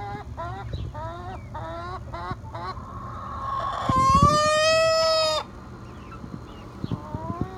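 A hen's odd call: a string of short notes, each rising in pitch, about two a second, then a loud, long call held steady for about a second and a half, then the short rising notes again. The hen has not yet begun laying, and her owner thinks she is close to it.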